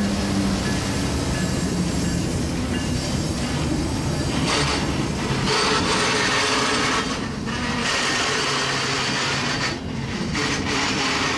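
Union Pacific double-stack freight train rolling past at close range, a steady noisy rumble of wheels and cars on the rails. A locomotive's diesel engine hum fades out in the first second.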